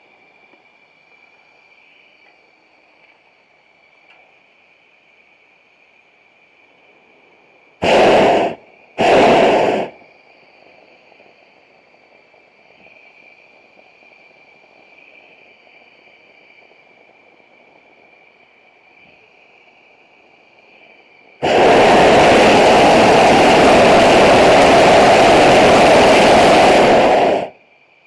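Hot air balloon's propane burner firing: two short blasts about a second apart, then one long blast of about six seconds. A faint steady high tone sits underneath between the blasts.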